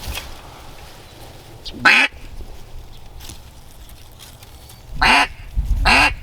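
Three loud, short duck quacks: one about two seconds in and two close together near the end.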